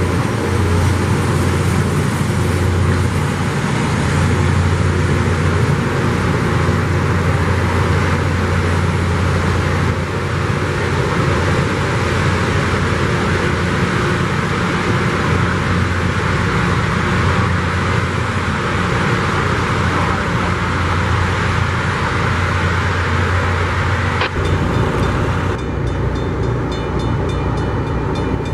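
Loram rail grinder train at work: a loud, steady rushing grind of the grinding stones on the rail over the low drone of the train's diesel engines. A sharp click comes about 24 seconds in, and the sound changes after it.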